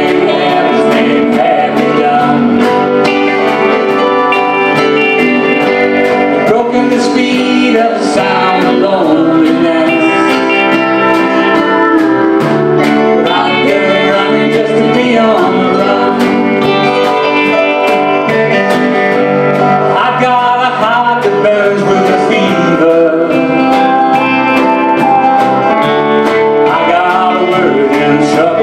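Live band playing a song: strummed acoustic guitar, electric guitar and a steady drum beat, with a man and a woman singing.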